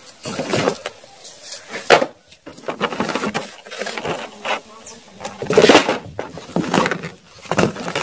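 Irregular rustling, scraping and knocks of cardboard and plastic toy packaging being handled as boxed toy guns and a bagged set of foam darts are lifted out of a cardboard box, with a sharp knock about two seconds in and the loudest rustle about six seconds in.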